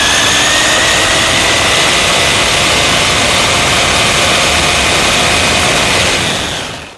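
Onboard sound of a 1/10-scale RC buggy driving fast: a steady high motor and gear whine over rushing wind and tyre noise on the camera's microphone. It fades out near the end.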